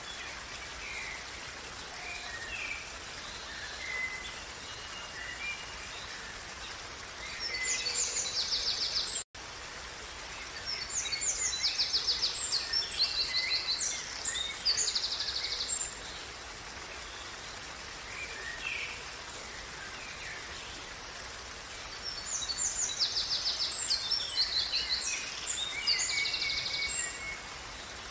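Creek water running steadily while songbirds sing, with three loud bouts of high, fast, rapidly repeated notes (about 8 seconds in, again from 11 to 16 seconds, and near the end) and softer scattered chirps in between. The sound cuts out for an instant just after 9 seconds.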